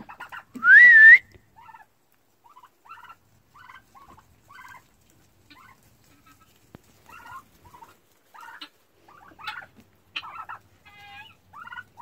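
Backyard poultry flock of chickens, turkeys and peafowl calling, many short soft calls scattered throughout. About half a second in comes one loud whistle-like call rising in pitch, the loudest sound, and near the end a quick rattling call.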